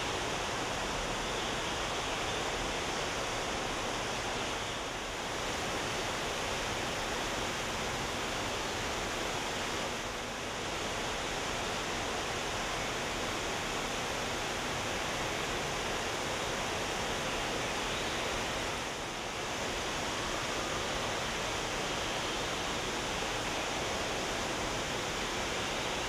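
Steady rushing of falling water from an indoor exhibit waterfall, dipping briefly about three times.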